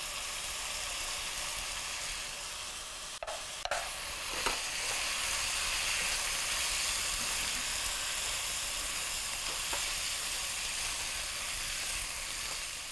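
Beef cubes and onions sizzling in hot oil in a frying pan, stirred with a silicone spatula, with a few brief taps about three to four seconds in.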